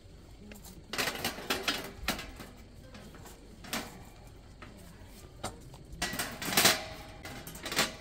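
Stainless steel panels of a Snow Peak IGT camping table being set into its metal frame, clanking and scraping metal on metal in several short bursts, the loudest a little over six seconds in.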